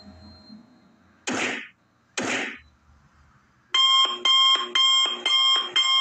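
Two short bursts of noise, then, from about halfway in, a loud electronic alarm beeping about twice a second, each beep several high tones sounding together.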